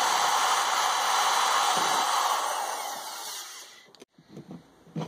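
Electric drill running steadily as its bit bores through a white PVC end cap. The drill winds down and stops about four seconds in, followed by a few light knocks.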